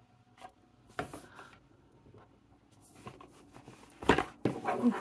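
Cardboard pen box being handled: a few light taps and clicks, then near the end a louder rustling scrape as the cardboard sleeve slides over the inner box.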